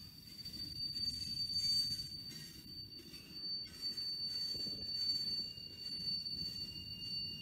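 Loaded freight cars, covered hoppers and boxcars, rolling past on steel wheels with an uneven low rumble from wheels on rail. A thin, steady high-pitched whine rides over it, and a second, lower whine joins near the end.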